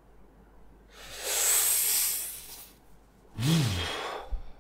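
A man's long, hissing breath out, then a short voiced grunt that rises and falls in pitch about three and a half seconds in: an exasperated sigh at getting no answer.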